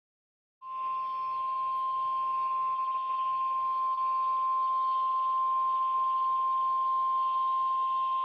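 NOAA Weather Radio warning alarm tone: a single steady tone near 1 kHz that starts under a second in and holds, over faint receiver hiss. It is the attention signal that an emergency alert message follows.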